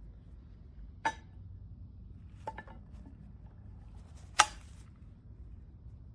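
Pots and pans of a ceramic-coated cookware set being handled and knocking together: a few sharp metallic clinks with brief ringing, about a second in, a quick double about two and a half seconds in, and the loudest about four and a half seconds in.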